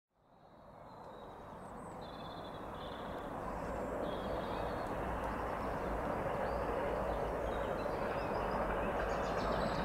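GB Railfreight Class 66 diesel locomotive approaching, a low engine rumble and rail noise growing steadily louder as it nears. Birds chirp over it.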